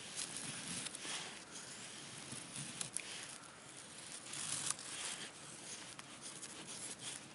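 Bark River Sahara knife's A2 steel blade shaving curls down a split stick of wood to make a feather stick: a run of short dry scraping, tearing strokes, one every second or so.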